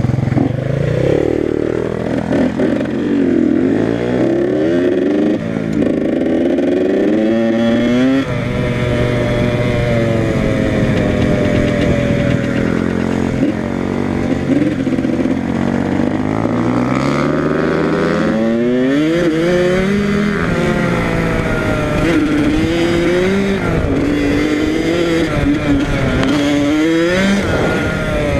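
Yamaha YZ85 two-stroke dirt bike engine accelerating on a trail, its pitch climbing and dropping back again and again as it revs up through the gears.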